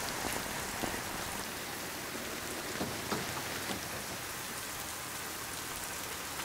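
Steady rain falling, with a few scattered drips standing out.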